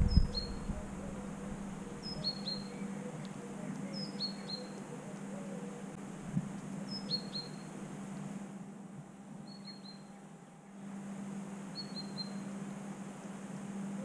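A small songbird repeating a short, high phrase of two or three quick falling chirps every two to three seconds. A single soft knock comes about six seconds in.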